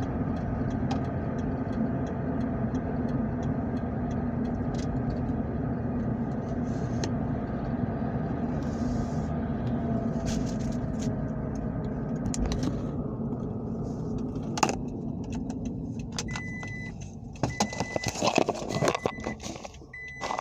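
Car running steadily, heard from inside the cabin. About two-thirds of the way through, the running sound fades, and a car's warning chime starts beeping about once a second amid clatter and jangling keys.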